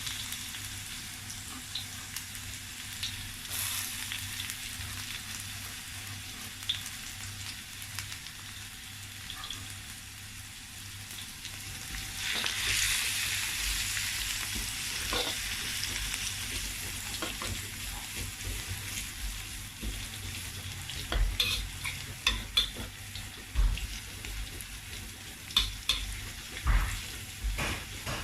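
Shredded ginger and garlic sizzling in hot oil in a wok as they are stir-fried. The sizzle swells for a few seconds about halfway through, and near the end a utensil clicks and knocks against the wok several times.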